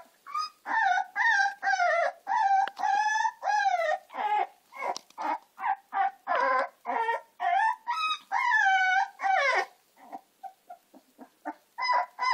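Young American Staffordshire terrier puppies crying: a rapid string of high, wavering whines and yelps, one after another, turning into shorter, softer whimpers about ten seconds in.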